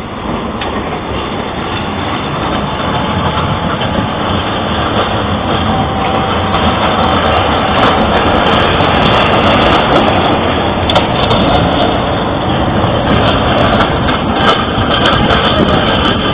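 Tram running, a steady mechanical noise with scattered clicks that grows louder over the first eight seconds or so and then holds.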